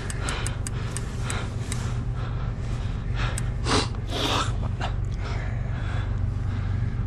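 Heavy snorting breaths and gasps from an angler straining against a large sturgeon on a bent rod, over a steady low hum, with a few sharp clicks in the first couple of seconds.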